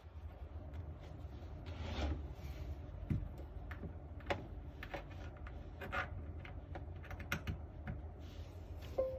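Mechanical keyboard in a 3D-printed Talice case with stock Bubblegum switches: scattered single key presses and handling, irregular clicks about once a second with some rubbing, over a low steady hum.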